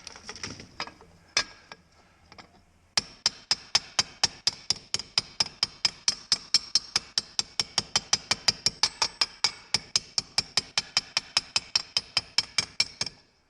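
Hammer tapping on a bowed metal part laid on an improvised anvil to flatten it: a few separate knocks, then from about three seconds in a fast, steady run of about five or six ringing metallic taps a second that stops just before the end.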